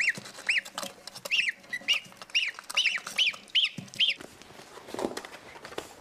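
Goslings peeping: about ten short, high, arching peeps, some in quick pairs, over the first four seconds.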